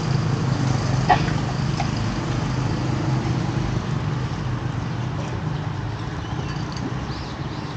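Busy street-market background with a steady low hum of nearby traffic and a sharp click about a second in.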